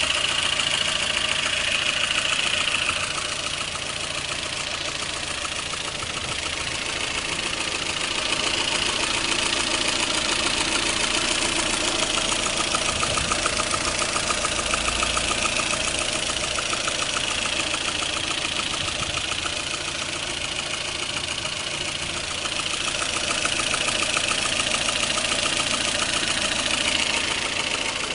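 Lada Kalina engine running steadily with an extraneous knock, a fast, even ticking over the engine note. The level drops and swells a few times.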